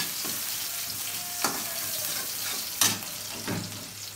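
Sliced onion sizzling in hot oil in a metal karahi while being browned, stirred with a metal slotted turner that scrapes and clinks against the pan about three times.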